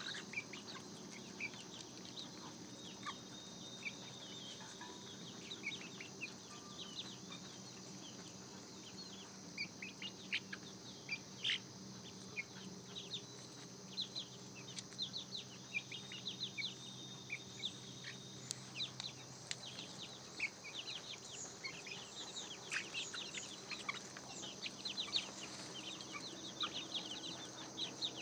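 A flock of young chicks peeping as they forage, with many short, high cheeps overlapping. The peeping grows busier in the second half.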